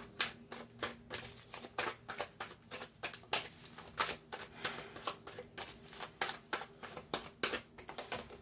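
Tarot cards being shuffled by hand: a continuous run of light, irregular card clicks and slaps, a few each second.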